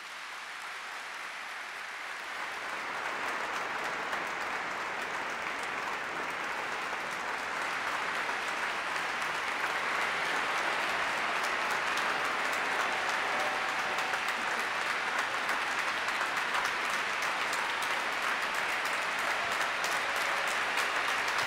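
Large audience applauding, building over the first few seconds and then holding steady.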